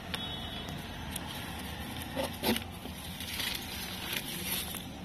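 Rustling and crackling of wood-pellet bedding and hay as a hand rummages through it in a cardboard box, with a short cluster of louder crackles a little over two seconds in.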